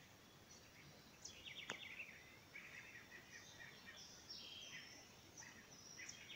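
Faint chorus of several small birds chirping and calling in quick, repeated notes, with one sharp click a little under two seconds in.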